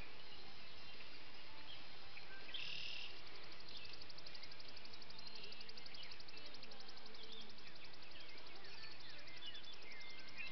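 Outdoor ambience of birds chirping and a fast, evenly pulsing insect trill in the middle, over steady background noise.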